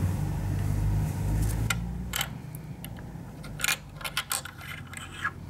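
A low steady hum fades out about two seconds in. After it come irregular light metallic clicks and clinks as fingers slide and pick up a key on a desktop.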